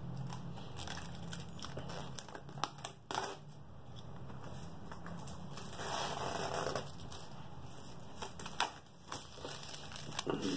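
Clear plastic film crinkling and crackling as it is handled and pulled, with scattered sharp clicks and rustles.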